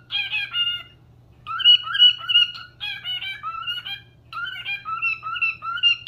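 Cockatiel whistling a warbling, tune-like song in short phrases of gliding notes, with a pause about a second in.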